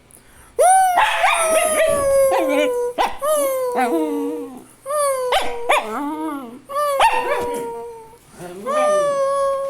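Dog howling: about four long, drawn-out howls, each sliding slowly down in pitch, with short yelps breaking in between.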